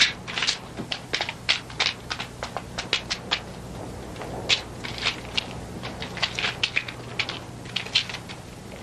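Footsteps of two people walking over rough ground: a quick, uneven run of sharp steps over a steady low hum.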